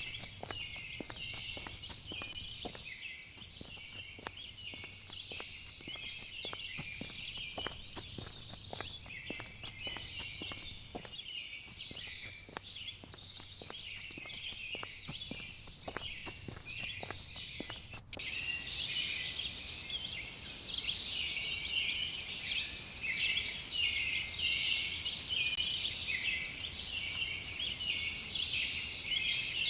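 A steady outdoor chorus of insects and birds, high-pitched chirping and trilling that comes and goes in waves. For roughly the first eighteen seconds many short sharp ticks run underneath; they stop abruptly at a cut, after which the chorus is louder.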